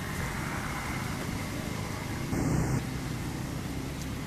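Steady low outdoor background rumble with hiss, with a brief louder noise a little past halfway.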